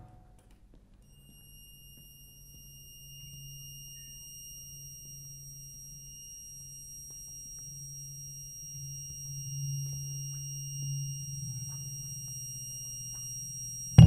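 Quiet sustained low drone from an electric guitar rig, slowly growing louder, with a steady high-pitched whine held above it. A loud struck chord cuts in at the very end.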